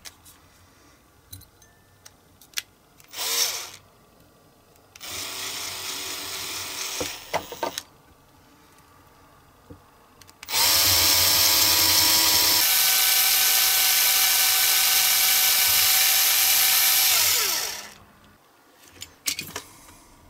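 Cordless drill drilling into a die-cast metal toy car baseplate. After a brief burst and a short run, the drill runs steadily for about seven seconds, its pitch stepping up partway through and then falling as it winds down. A few light clicks follow near the end.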